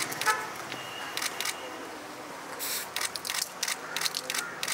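Scattered sharp clicks, among them camera shutter clicks, with handling rustle and a brief voice near the start.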